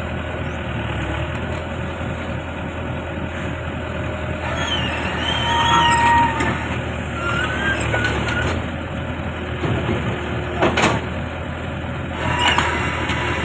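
Backhoe diesel engine running steadily, with wavering metallic squeals for a few seconds around the middle and a single sharp knock near the end.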